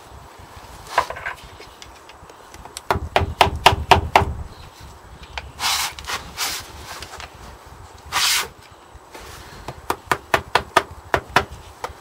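Screwdriver blade prising and scraping at a badly worn crankshaft spigot bush: runs of sharp metallic clicks and knocks, a few short scrapes in the middle, and a quick string of clicks near the end.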